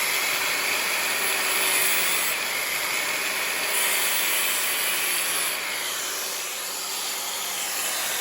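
Cordless angle grinder cutting a slot into a stripped screw head on a dirt bike, a steady grinding of disc against metal that eases off about five seconds in.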